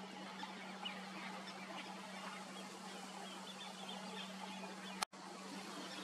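Faint outdoor ambience with scattered distant bird chirps over a steady low hum. A sharp click and a split-second dropout come about five seconds in.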